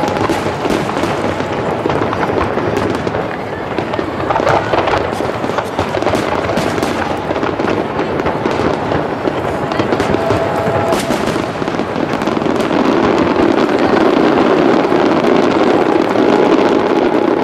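Aerial firework shells bursting in a dense, rapid barrage: overlapping booms and crackle, growing louder over the last few seconds.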